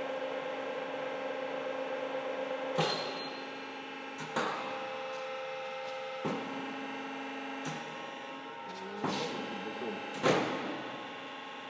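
Ragache New Tube CP 70 roll bender's electric drive running with a steady hum. It is switched about six times, each switch a sharp click followed by a change in the tone of the hum.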